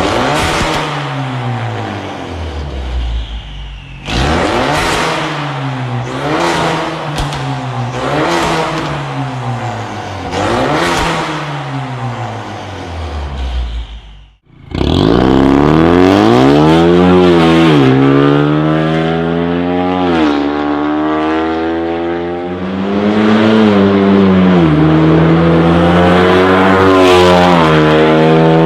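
Ford Mustang 2.3 EcoBoost turbo four-cylinder through a catless downpipe and a valved Fi exhaust with the valve open: a series of sharp free revs, each rising and falling back. After a brief break about halfway, the car accelerates hard through the gears, its pitch climbing and then dropping at each upshift.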